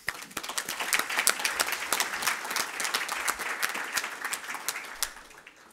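A room full of people applauding; the clapping dies away toward the end.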